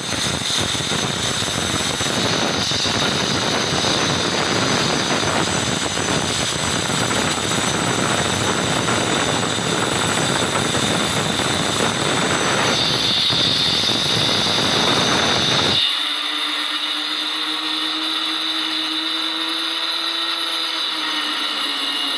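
Handheld electric marble cutter running and cutting through a marble tile, a harsh grinding noise with a high whine. About 16 seconds in the grinding drops away and a steadier, lower motor hum remains.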